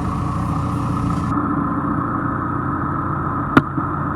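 John Deere 410E backhoe's 4.5-litre diesel engine idling steadily. A hiss stops about a second in, and a single sharp click sounds near the end.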